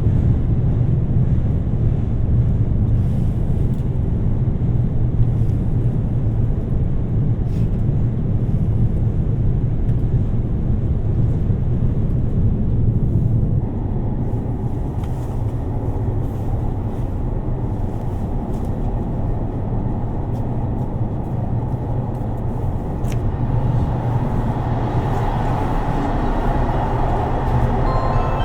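Steady running noise inside a JR Shikoku 2700 series diesel limited express train, a low rumble of engine and wheels on the rails. The sound changes abruptly about halfway through.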